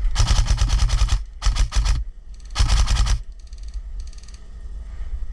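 Airsoft gun firing on full auto in three short bursts of rapid clicking shots within the first three seconds, followed by fainter bursts of the same rapid fire.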